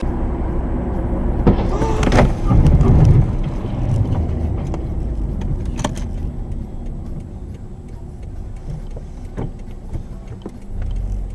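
Car driving with steady road and engine rumble. About two seconds in there is a loud burst of impacts, with a sharper knock or two later on.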